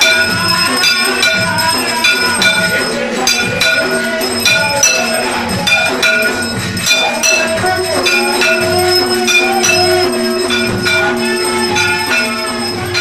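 Temple bells ringing with a steady rhythm of metallic strikes, mixed with devotional music. A long held note comes in about eight seconds in.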